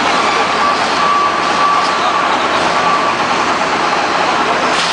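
Steady noise of heavy machinery running, with a faint whine for the first three seconds.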